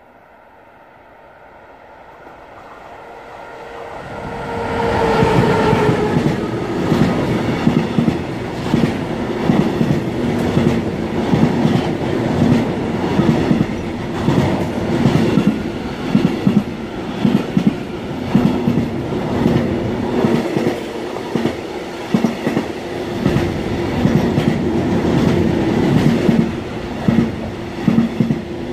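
Intermodal freight train carrying lorry semi-trailers approaching and passing close by. The locomotive's whine falls in pitch as it passes about five seconds in. After that the wagons roll by with a steady rumble and a regular clickety-clack of wheels over rail joints.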